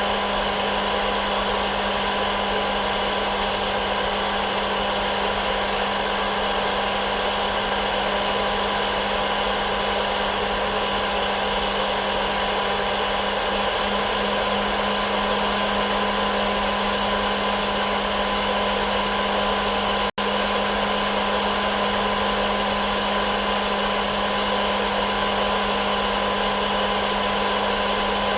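Hair dryer running steadily as continuous white noise: an even rush of air with a steady low hum and a fainter whine above it. It cuts out for a split second about twenty seconds in, then carries on unchanged.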